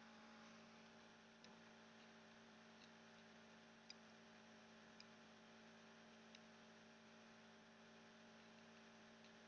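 Near silence: a faint steady electrical hum, with about five faint, short ticks spread through it.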